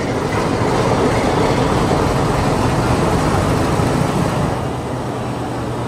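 Meter-gauge diesel locomotive idling while the train stands: a steady low engine hum under a broad rumble, easing off slightly in the last second or so.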